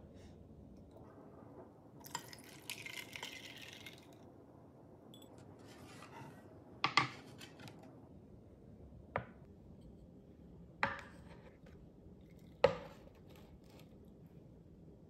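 A green drink is poured over ice in a glass: a short splashing pour. A few seconds later come four sharp knocks as a ceramic bowl, a glass and dishes are set down on a wooden tray.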